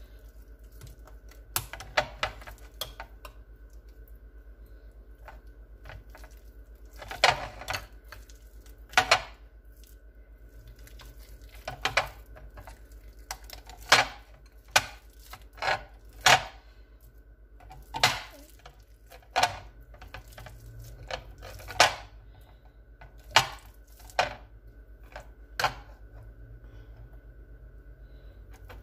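Hand masher mashing boiled ripe plantains in a glass bowl, the masher knocking sharply against the bowl every second or two at an uneven pace.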